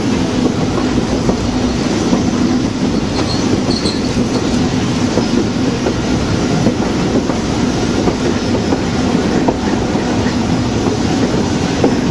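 Open-sided excursion passenger car rolling on the rails: a steady rumble with the wheels knocking over rail joints.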